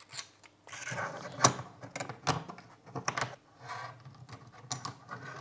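3D-printed plastic track links and a small wheel clicking and rubbing under the fingers in irregular knocks, as the last small wheel is pressed in to tension the track.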